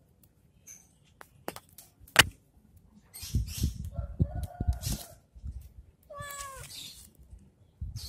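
A cat meowing twice, two short calls about two seconds apart, the second falling in pitch. A sharp click comes about two seconds in, and low rumbling noise runs under the calls.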